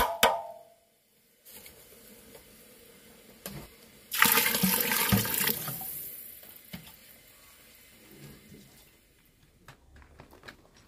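A metal ladle clinks against the steel cooking pot at the very start, ringing briefly. About four seconds in comes a loud rush of running water lasting about two seconds, then fading away.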